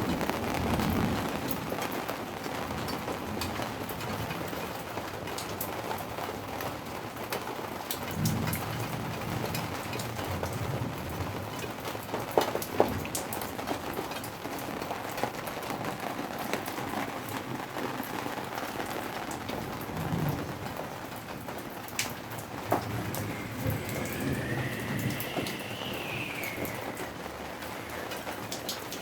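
Steady rain falling, with single drops ticking through it and a few low rumbles. Near the end a thin tone rises and falls over a few seconds.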